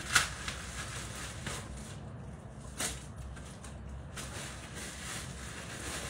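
Frozen spinach being crushed by hand and dropped into a Thermomix's steel mixing bowl: scattered clicks and crackles, the sharpest right at the start and another about three seconds in.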